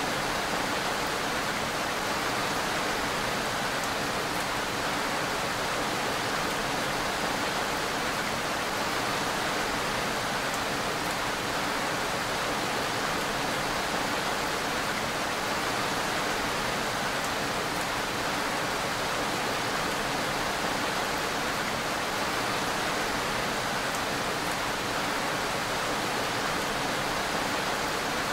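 Steady rain falling, an even, unbroken hiss that neither swells nor fades.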